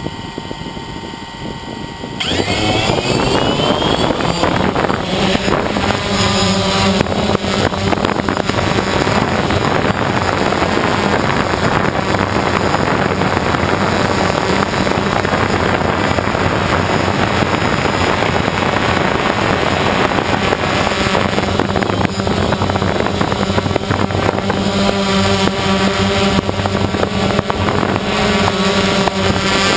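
FPV drone's electric motors and propellers, heard close up from its onboard camera: a steady whine from the spinning props, then about two seconds in a sudden rise in loudness and pitch as the throttle comes up for takeoff. After that comes a continuous loud buzz of motors and prop wash, its pitch shifting up and down with the throttle.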